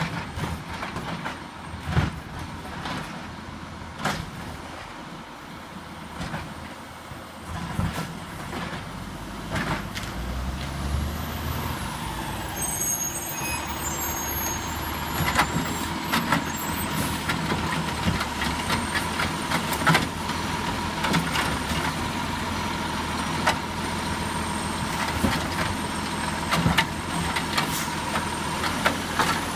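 Diesel engine of a Peterbilt 320 garbage truck with a Heil Durapack 7000 automated side-loader, running as the truck pulls up and stops, with scattered sharp hisses and clunks typical of air brakes. From about halfway through a steady whine joins the engine while the automated arm reaches out for a cart.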